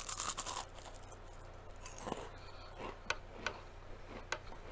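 A crunchy bite into a deep-fried kale chip right at the start, then closed-mouth chewing with a few scattered soft crackles and clicks.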